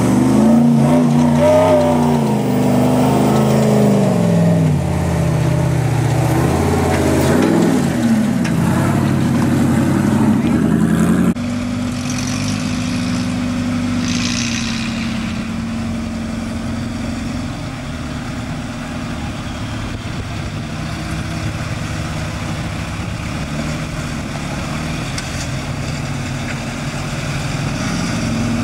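Off-road vehicle's engine revving, its pitch rising and falling again and again. About eleven seconds in, the sound cuts off abruptly to a quieter, steadier engine note.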